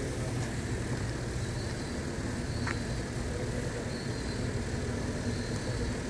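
An engine idling, a steady low rumble, with one brief faint click about two and a half seconds in.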